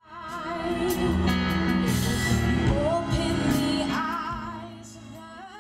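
Live band music with women singing over drums and bass, fading in at the start and dropping away about five seconds in.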